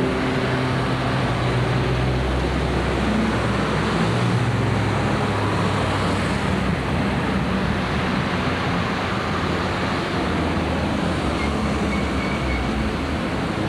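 Steady road traffic noise, with the low hum of vehicle engines coming and going.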